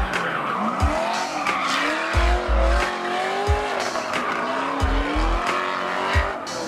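Drift car's engine revving up and down as it slides, with tyre squeal, over a trap beat whose deep bass hits thud every second or so.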